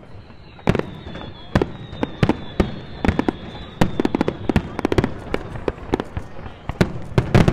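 Fireworks display: a string of sharp bangs and crackles from bursting shells, coming faster and denser near the end, with a thin high whistle through the first half.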